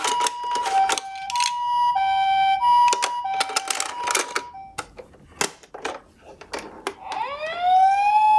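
Toy ambulance minicar's electronic two-tone "pee-po" siren, alternating a high and a low tone about every half second, stops about four and a half seconds in, among sharp clicks and knocks. Near the end another toy siren rises into a steady wail.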